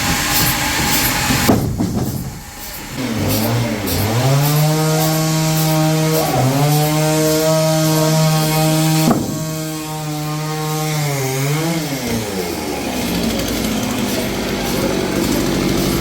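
Sawmill saw running while cutting walnut logs: a steady machine tone rises in pitch about three seconds in, holds with two brief dips, then falls away about twelve seconds in.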